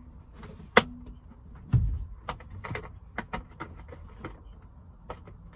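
Plastic A-pillar trim of a VW Transporter T5 and its clip clicking and creaking as a pry tool is worked behind it to release the clip: an irregular scatter of sharp clicks, with one duller knock about two seconds in.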